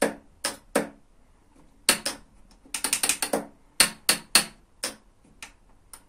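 Electric door lock's solenoid latch mechanism clacking: more than a dozen sharp metallic clicks, irregularly spaced with a quick run of them about halfway through, as the lock is powered and its latch snaps and is worked back. The freshly cleaned and oiled mechanism now moves freely.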